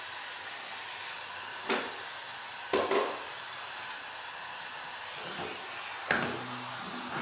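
Heat gun blowing steadily, set to about 145 degrees to soften the glass adhesive, with a few sharp clicks and taps: one about two seconds in, two close together near three seconds, and one near six seconds, after which a low hum joins in.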